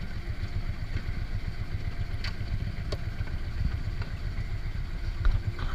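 A fishing boat's engine running with a steady low rumble, with a few faint clicks.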